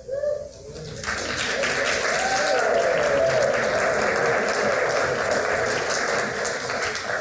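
A congregation applauding: many hands clapping, swelling about a second in, holding steady, and dying away near the end.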